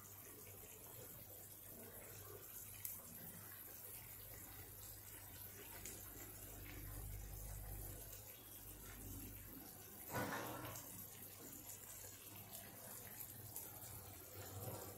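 Spiced broth at a rolling boil in a frying pan, bubbling faintly and steadily, with one short louder sound about ten seconds in.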